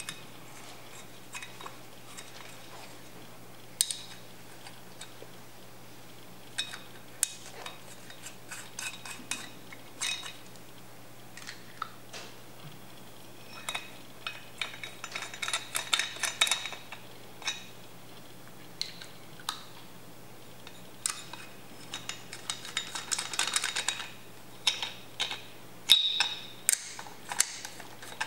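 Small steel cylinder-head nuts and washers clinking and ticking against the studs and the aluminium head of a Honda CRF250R engine as they are spun down by hand. Scattered sharp clicks, with two spells of rapid ticking about halfway through and again a few seconds later.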